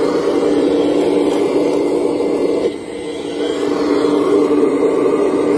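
Motor of a radio-controlled Liebherr 970 excavator model whirring steadily as it digs and swings its boom. The drone dips sharply about halfway through, then builds back up.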